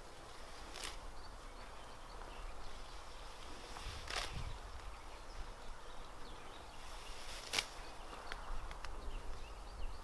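A small hand sickle cutting through bunches of nettle stalks: three crisp cuts about three and a half seconds apart, with a couple of lighter ones near the end, over the rustle of the plants. Underneath are a low wind rumble and faint bird chirps.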